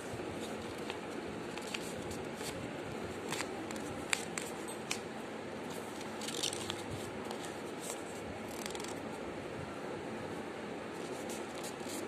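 Paper being handled and creased by hand while folding origami: scattered soft crackles and taps over a steady background hiss.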